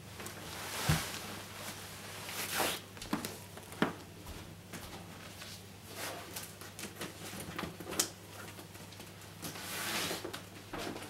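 A handbag being packed and lifted: rustling, a zip and scattered light knocks and clicks, then footsteps as she moves off, over a low steady hum.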